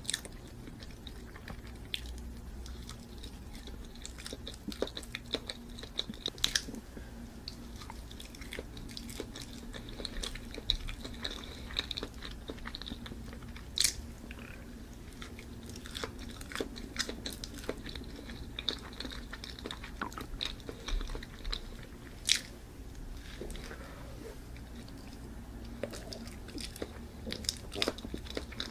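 A person chewing and biting food, with many irregular sharp mouth clicks over a faint steady hum.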